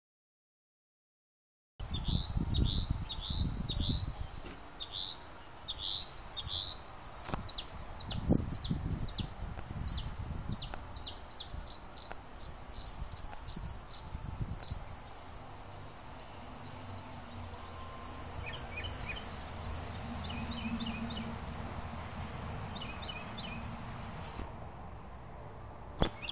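A bird calling a long series of short, high, down-slurred notes that come faster and faster, then a few clusters of quicker, shorter notes near the end. Low rumbling noise sits underneath, strongest in the first seconds after the sound begins. The species is unknown: the bird is one the recordist cannot identify.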